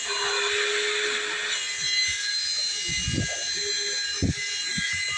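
Small DC cooling fan running with a steady high whine and a rush of air, with a few knocks as the unit is handled.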